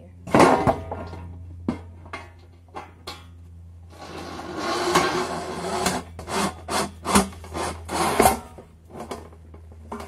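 A wooden post rubbing, scraping and knocking against a stainless steel bowl and plywood board as it is worked into place by hand. A sharp knock comes just under a second in, a longer scrape about four to six seconds in, then several short knocks and scrapes.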